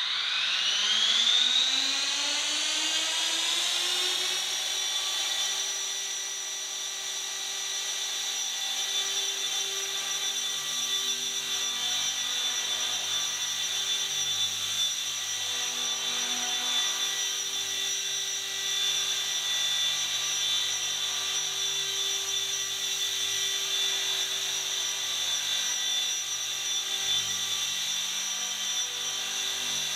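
Gaui Hurricane EP200 V2 SE electric RC helicopter with a five-blade main rotor head spooling up. Its motor-and-rotor whine rises in pitch over the first four seconds, then holds a steady pitch at flying head speed.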